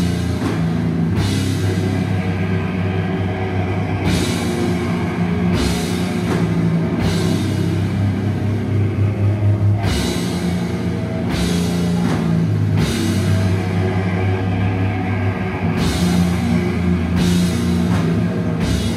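Death metal band playing live: distorted electric guitars over a driving drum kit, with cymbal crashes coming in every few seconds.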